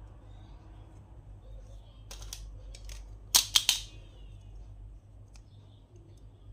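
Sharp clicks and snaps from small plastic toys and packaging being handled and opened: a couple of light clicks, then a louder cluster of three quick snaps about three and a half seconds in.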